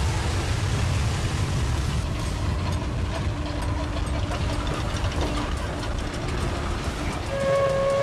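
Train running on the rails with a steady low rumble. Near the end a train whistle starts and holds one steady note.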